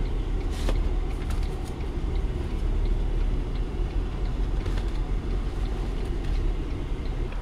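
Heavy vehicle or machinery engine running steadily, a low rumble with a few faint knocks over it.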